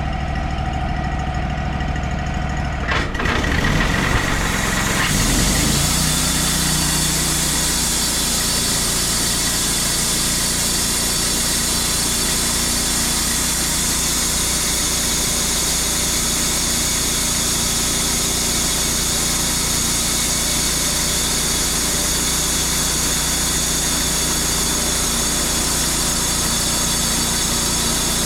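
Wood-Mizer portable band sawmill running steadily; about three to six seconds in its sound builds to a strong, steady high hiss over the engine hum as the mill comes up to cutting.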